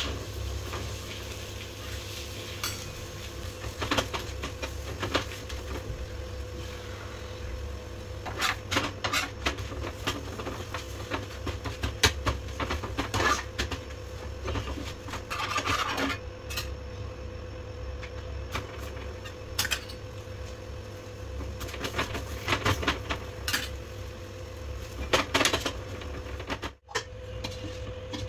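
Metal spatula scraping and tapping on a tawa as chapatis are pressed and turned, with scattered clinks of steel utensils. Under it runs a steady low hum.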